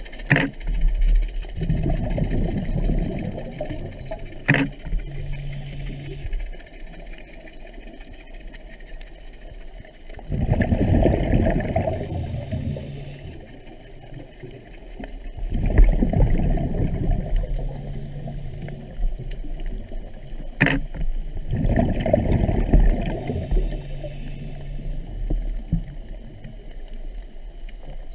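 A scuba diver breathing underwater: about four breaths, each a bubbling exhalation from the regulator followed by a short hissing inhalation. A few sharp clicks come in between.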